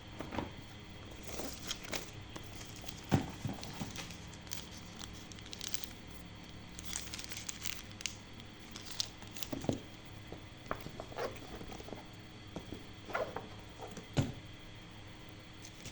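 Packaging being handled: crinkling plastic and rustling, with scattered clicks and knocks, the sharpest about three seconds in and near the end.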